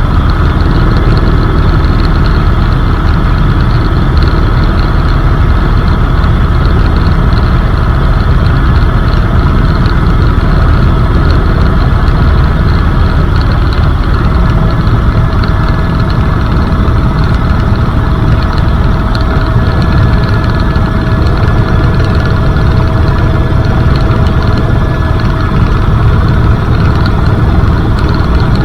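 Helicopter in steady flight heard from inside the cabin: a loud, unbroken rotor and engine noise with a few steady whining tones over it, one of which comes in about halfway through.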